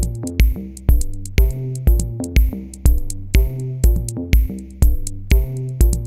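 Background music with a steady drum beat, about two beats a second, over held pitched notes.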